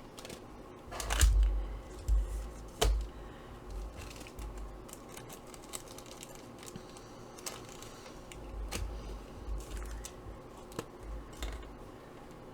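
Glue stick rubbed over paper hang tags, with scattered taps and rustles of the paper and glue stick being handled. The loudest knocks come about a second in and just under three seconds in.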